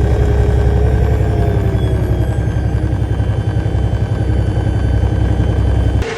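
Cummins ISX diesel truck engine running loud and steady with a low, even throb, with a faint whistle wavering over it in the first two seconds. The engine has a boost leak at the broken intercooler. The sound cuts off abruptly about six seconds in.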